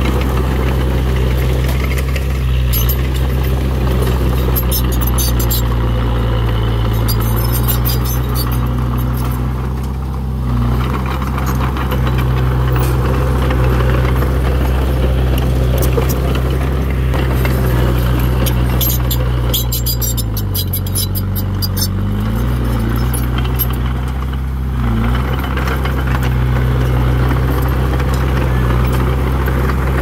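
Diesel engine of a Komatsu D21P bulldozer running steadily; its note dips briefly about two-thirds of the way through. Two spells of high rattling, about a quarter and two-thirds of the way in.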